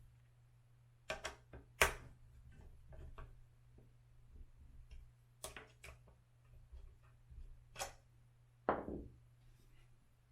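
Scattered clicks and knocks of metal parts and tools being handled while the Onewheel's hub motor bolts are fitted into the rails, the sharpest knock about two seconds in, and a short scrape near the end. A steady low hum runs underneath.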